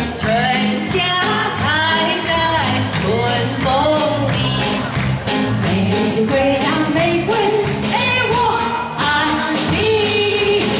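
A woman singing a pop song into a handheld microphone over band accompaniment with a steady drum beat, with other women singing along.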